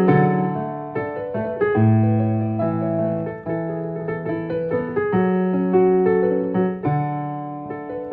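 Casio Privia PX-750 digital piano played slowly: full chords over held bass notes, with a new chord every second or two.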